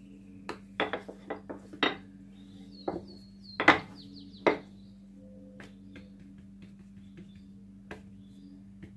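A run of sharp knocks and clatters of kitchen utensils on a countertop, with a short high ringing clink in the middle. The two loudest knocks come about three and a half and four and a half seconds in, and only a few faint ticks follow.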